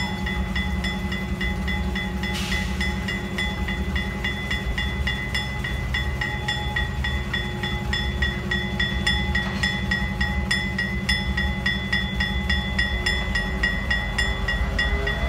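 Diesel freight locomotives rumbling steadily while a locomotive bell rings about twice a second.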